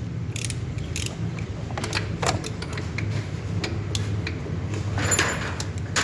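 Hand tools working on a car engine: scattered ratchet-like clicks and metal knocks, busiest about five seconds in, over a steady low hum.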